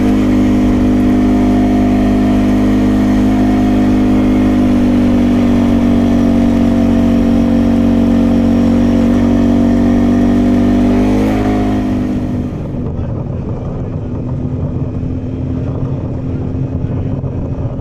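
Can-Am Outlander ATV's V-twin engine running at a steady cruising speed, its pitch rising slightly just before an abrupt change about twelve seconds in. After the change the engine sounds quieter and rougher, with more rushing noise.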